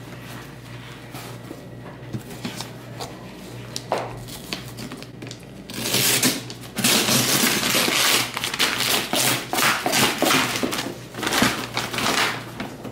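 Quiet handling with small knocks, then from about six seconds in loud, rapid rustling and tearing as brown paper and plastic wrap are ripped off a large cardboard parcel.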